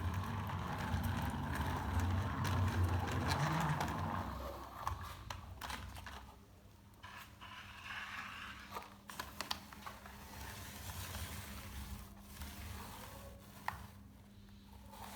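Toy RC cars rolling and being handled: a rumbling scrape for about the first four seconds, then quieter scattered clicks and scrapes.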